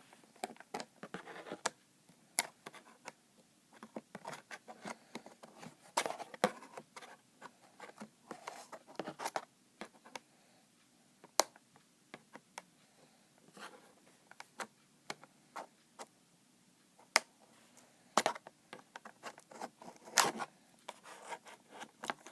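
Small scissors snipping and scraping at packing tape on a cardboard box, with sharp irregular clicks and short rustles of tape and cardboard.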